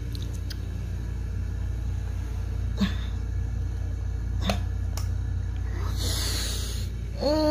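Wall light switches clicking a few times, sharp single clicks, as someone feels for the room light, over a steady low hum. Near the end comes a short falling voice-like sound.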